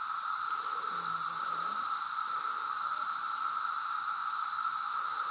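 Brood X periodical cicadas chorusing in a steady, unbroken drone.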